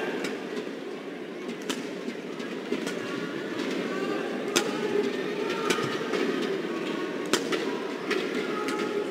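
Badminton rally: rackets striking the shuttlecock in sharp cracks, one every one to two seconds, over the steady murmur of an arena crowd.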